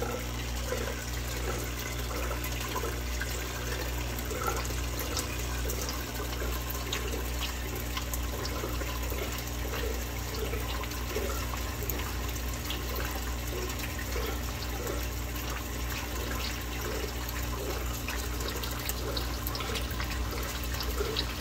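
Aquarium water bubbling and trickling steadily, over a constant low electrical hum.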